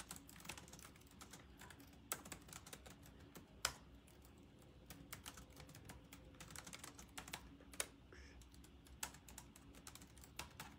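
Faint, irregular small clicks and taps, much like light typing, with a few sharper ticks every second or two.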